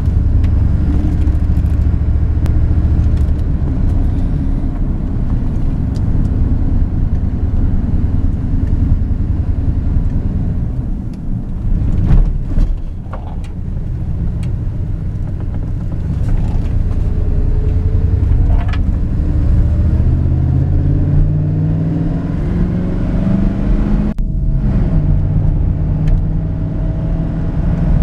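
Engine and road noise inside the cab of a 1994 Dodge Ram 1500 pickup on the move. It eases off with a thump about halfway through, then the engine note rises steadily as the truck accelerates, and near the end it drops in pitch once as the automatic transmission shifts up.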